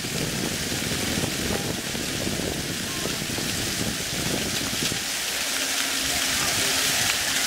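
Ground-level splash fountain jets spraying water onto wet paving, a steady hiss, with a murmur of crowd voices that thins out about five seconds in.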